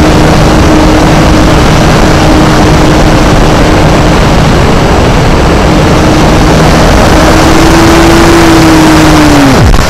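Electric motor and propeller of a Multiplex EasyGlider RC model running at a steady pitch under heavy airflow rush on the onboard camera's microphone. Near the end the motor's tone rises slightly, then winds down sharply and stops as the motor is cut, leaving only the wind.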